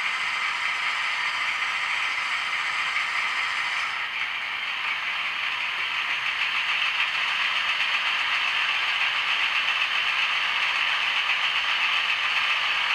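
Model diesel locomotive (ESU's V200 of the Deutsche Bundesbahn) crawling at a very low speed step, giving a steady mechanical whirr and rattle from its drive. About four seconds in the sound shifts slightly, losing some of its hiss and growing a little louder.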